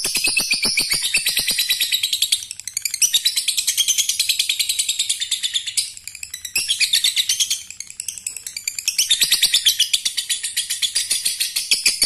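Male lovebird giving the long 'ngekek' chatter: a fast, even run of sharp, high chirps, about ten a second, breaking off briefly three times.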